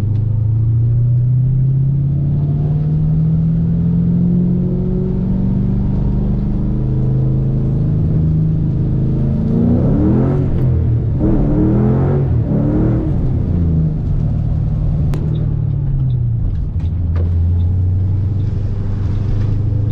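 Ford Mustang GT's 4.6-litre three-valve V8, heard from inside the cabin, rising slowly through the revs for several seconds. Around the middle come a few short revving rises in quick succession. The pitch then falls and settles to a steady low engine note.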